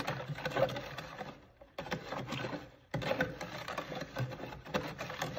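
A spoon scraping and knocking quickly round the inside of a plastic jar, stirring a thick, clumpy paste of washing soda, baking soda and water. The stirring stops briefly about one and a half seconds in and again just before three seconds, then carries on.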